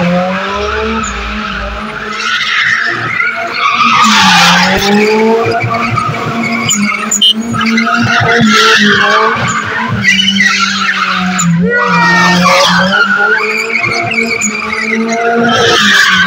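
Nissan Silvia S14 drifting: the engine is held at high revs while the rear tyres screech and spin on the pavement. The engine note dips and climbs again twice as the car swings through its slides.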